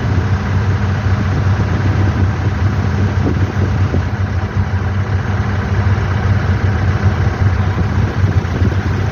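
Airliner engines running steadily at low power, a constant low hum over an even rushing noise.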